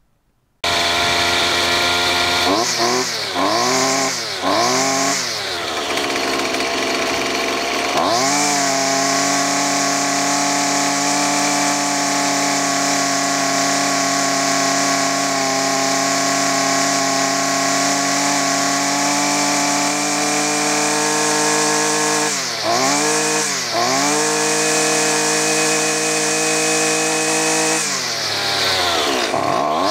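Small two-stroke string trimmer engine running and being throttled. Three quick revs up and down at first, then it holds high speed, dips briefly twice, and drops and picks up again near the end.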